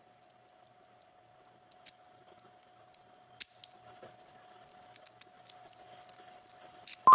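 Key cutting machine with a faint steady hum and scattered sharp metallic clicks and ticks, more frequent toward the end. It ends with a sudden loud, bright multi-tone chime.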